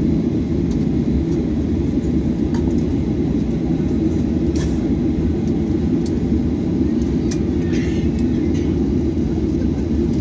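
Cabin noise of a Boeing 737-800 taxiing, its CFM56-7B engines at idle: a loud, steady low hum heard from a window seat over the wing, with a few faint clicks.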